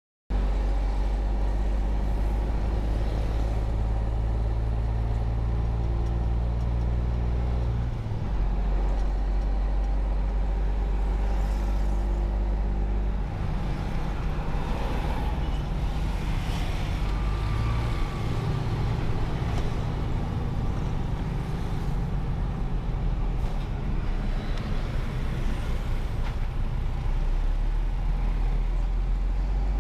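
Engine of a heavy truck carrying about 12 tonnes, heard from inside the cab as it drives off. The low drone changes pitch several times.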